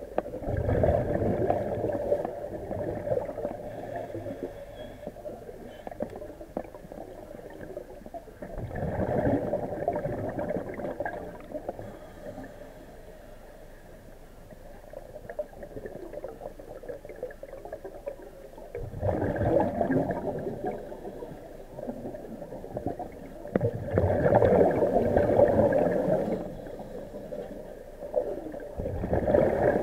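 Underwater recording of exhaled air bubbling up in bursts, about five times at intervals of several seconds, with a low muffled rumble between the bursts.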